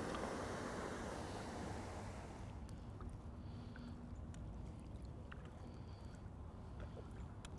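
Water gushing out of a large concrete culvert outfall into the river, a steady rushing that fades away after about two and a half seconds. After that, calm water with light drips and small taps from a canoe being paddled.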